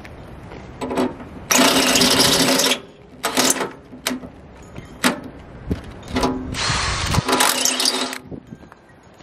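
Makita cordless drill boring into the steel wall of a tractor's front-loader bucket in several bursts: two long runs of a second or more, about a second and a half in and again about six and a half seconds in, with short blips of the trigger between.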